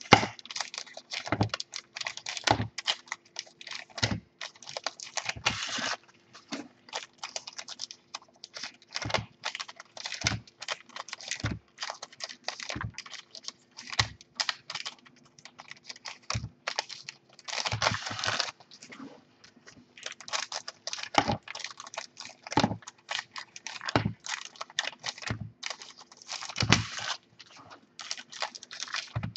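2015 NRL Elite trading cards handled and sorted by hand: cards sliding and flicking against one another, with frequent irregular sharp taps as cards and small stacks are set down and squared on a wooden desk.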